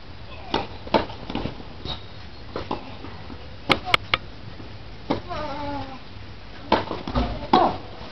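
A tennis rally on a clay court: a string of sharp pocks from racquets striking the ball and the ball bouncing, some coming in quick pairs. A drawn-out voice cry comes about five seconds in, and a shorter one comes near the end.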